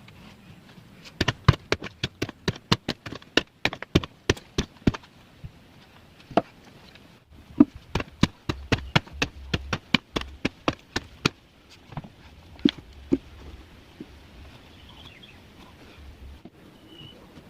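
Two quick runs of sharp knocks, about four or five a second. The first starts about a second in, the second about halfway, and a few single knocks follow.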